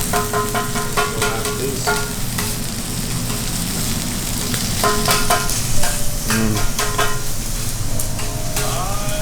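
A5 wagyu Kobe beef sizzling steadily as it cooks, with scattered sharp clicks over the hiss.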